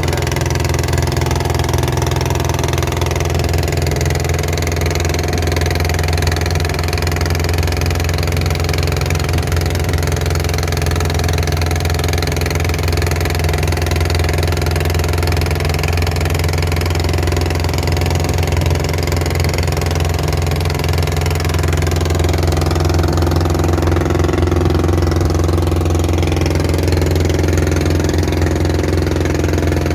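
Long-tail boat's engine running steadily under way, an even drone that grows a little louder in the last third.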